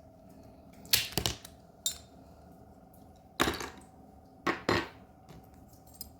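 Small die-cast toy car parts (metal base, plastic interior and windshield) clicking and clacking as they are handled and set down on a work surface: a handful of sharp clicks in small clusters.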